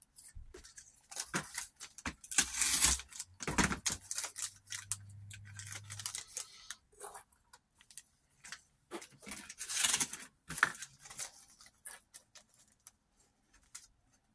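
Plastic packaging crinkling and rustling in irregular bursts, mixed with small clicks of little balance shaft seals being handled.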